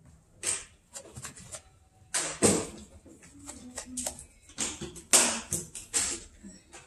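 Hands scrubbing and scrunching shampoo-lathered hair, a run of irregular short rustling, clicking strokes, loudest about two seconds in and again around five seconds in.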